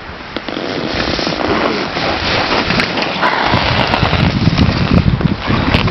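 Ski edges scraping and hissing across hard-packed race snow as a giant slalom racer carves turns close by: a loud rushing hiss that swells about half a second in, with scattered sharp clicks later on.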